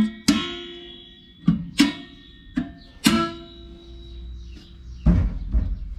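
Metal clanks and spring twangs from a brake spring tool and the return springs on a drum brake backing plate, about seven sharp strikes at uneven intervals, each ringing out briefly.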